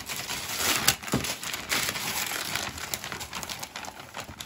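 Christmas wrapping paper being torn and crumpled off a gift box: a steady run of rips and crinkles, with one sharp rip about a second in.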